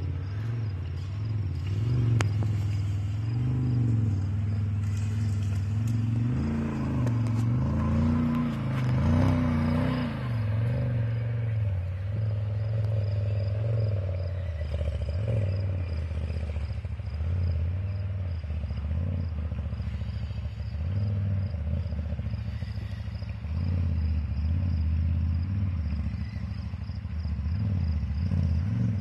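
Can-Am Maverick X xc side-by-side's V-twin engine running, revving up and easing off several times in the first ten seconds, then running on more steadily at lower revs.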